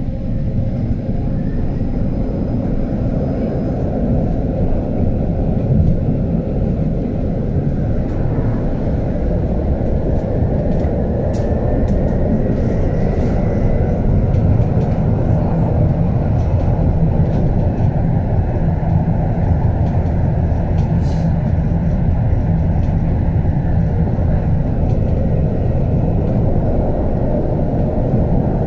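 HF 11 AC tram running along the track: a steady rumble of wheels on rail and running gear. Around the middle a faint rising whine comes in.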